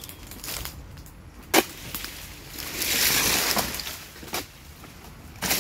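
Long-handled oil palm harvesting chisel (dodos) working at the base of a young oil palm: a sharp strike about a second and a half in, a rustling swish of palm fronds for about a second midway, and another knock a little after four seconds.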